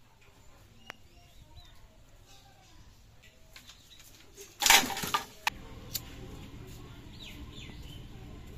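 An armful of dry bamboo sticks thrown down onto a pile of dry twigs and leaves: a loud clattering rustle a little past halfway, followed by two sharp knocks of sticks settling.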